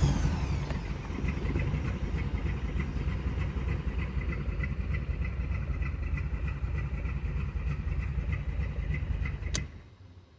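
Engine idling steadily with a regular light ticking, just after being started from an aftermarket racing-style push-button starter switch; it shuts off suddenly near the end.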